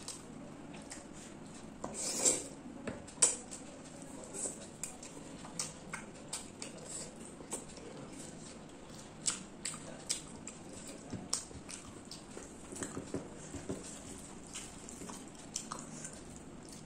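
Close-up eating sounds of rice and chicken curry eaten by hand: wet chewing and mouth smacks with irregular sharp clicks and light knocks on a plate. The loudest come about two seconds in and again a second later.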